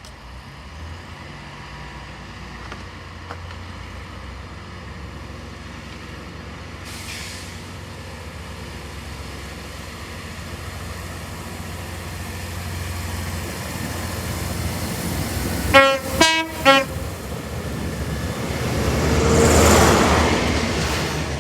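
HST approaching with a low rumble that grows steadily louder. About two thirds of the way through, it sounds its two-tone horn in three short blasts. The rush of the train passing at speed then swells to its loudest near the end.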